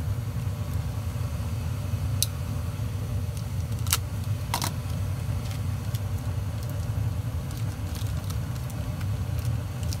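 Trane 80% gas furnace running with its burners lit: a steady low rumble. A few short sharp clicks from tape being handled at the cabinet door switch come about two and four seconds in.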